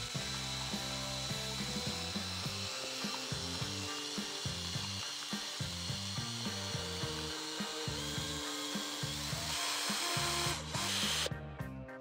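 Cordless drill running, stirring silicone sealant and solvent in a plastic bottle with a bit, with a steady motor whine. It runs a little louder toward the end, then stops suddenly near the end.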